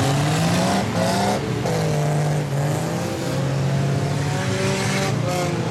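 Engines of a pack of speedway streetcars racing on a dirt oval, several engine notes overlapping, revving up and easing off in turn as the cars circle the track.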